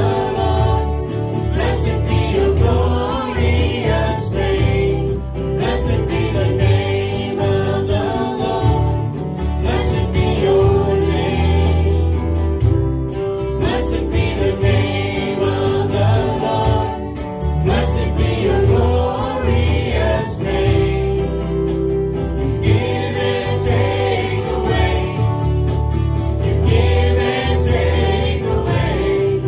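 Christian worship song: several voices singing over a steady instrumental accompaniment with a beat.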